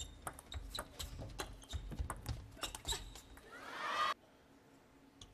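Table tennis rally: the plastic ball clicking sharply off the rackets and the table in quick, irregular succession. A short crowd reaction swells near the end and cuts off suddenly.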